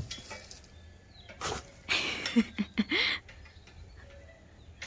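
Domestic cats at a cardboard box: three short noisy bursts and a few brief low calls that rise and fall in pitch, all around the middle.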